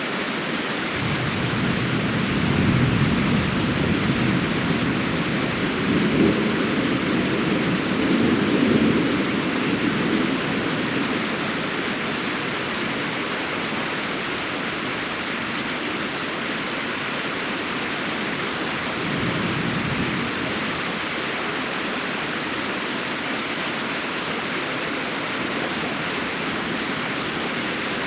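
Steady rain with rolling thunder. A long rumble builds about a second in and fades by about ten seconds, and a shorter rumble comes about two-thirds of the way through.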